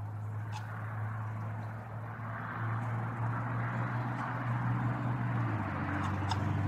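A distant engine running steadily, its low hum stepping in pitch a couple of times and the sound growing louder.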